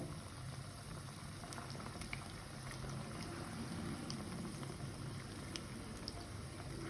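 Breadcrumb-coated paneer and cheese pieces deep-frying in hot oil: a steady, quiet bubbling sizzle dotted with scattered small pops.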